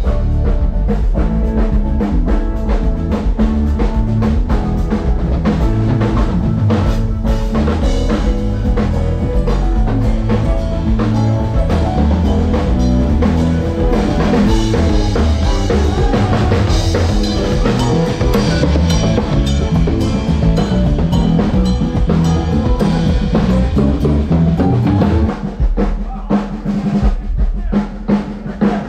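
Live band playing at a soundcheck: drum kit and bass under sustained chords. About 25 seconds in the band stops and the drum kit carries on alone with separate hits.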